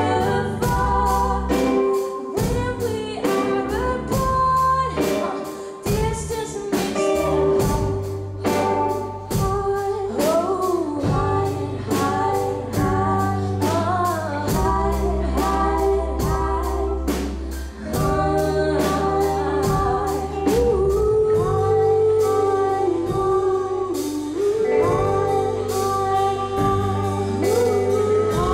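Live band playing a song with a woman singing lead into a handheld microphone, over electric guitar, sustained bass notes and a steady drum beat.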